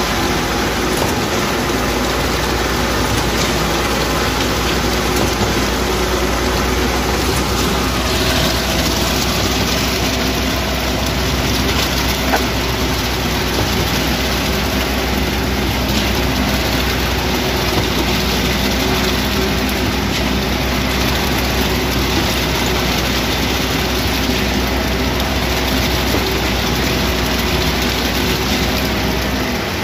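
Heavy engines of a concrete mixer truck and a concrete pump running steadily while wet concrete is discharged down the mixer's chute into the pump hopper.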